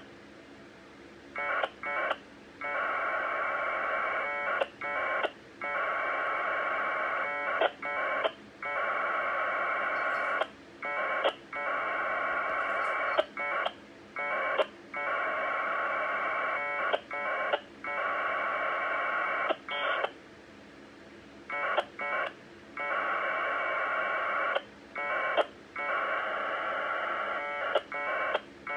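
1200-baud Bell 202 AX.25 packet data from Motorola CDM1500 UHF radios: bursts of harsh, warbling two-tone modem sound, from short blips to several-second frames, with brief gaps between them as the two stations trade data frames and acknowledgements while a Winlink email downloads. Quieter pauses come at the start and about two-thirds of the way through.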